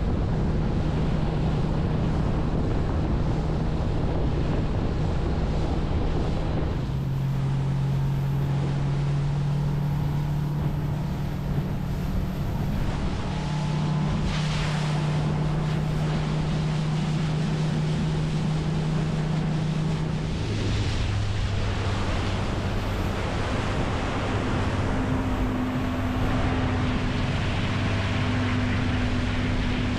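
A boat's outboard motor running steadily under wind noise on the microphone and the rush of water. Its note shifts abruptly a few times, dropping lower about a third of the way in and again past the middle.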